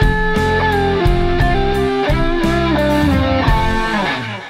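Rock instrumental with an electric guitar playing a lead melody of held, bending notes over a bass line and a steady beat. It drops in level just before the end.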